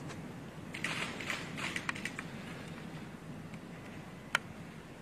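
A quick run of light clicks and taps about a second in, then a single sharp click near the end, over quiet room noise.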